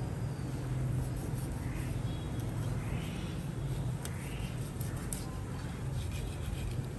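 Cleaver blade drawn along a raw fish fillet on a plastic cutting board, a soft scrape about every second and a bit, with a couple of light ticks of the blade about four and five seconds in, over a steady low hum.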